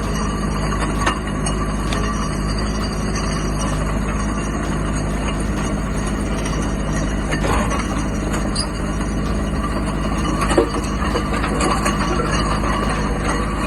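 Mini excavator's diesel engine running steadily while aggregate is screened, with a few sharp knocks of stone or steel, the loudest about ten seconds in.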